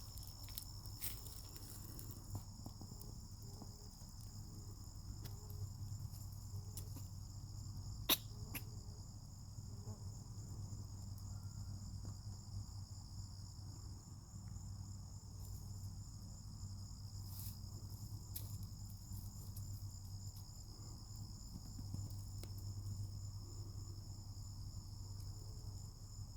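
Steady chorus of crickets trilling at two high pitches, over a low steady hum. A single sharp click stands out about eight seconds in, with a few fainter ticks scattered through.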